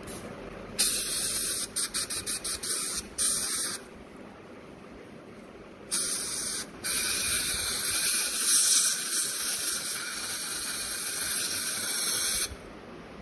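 Dental three-way air-water syringe spraying onto prepared teeth in hissing blasts. A burst comes about a second in, followed by a string of quick puffs and another short burst. After a pause, a long blast starts about six seconds in and runs for roughly six seconds before it cuts off.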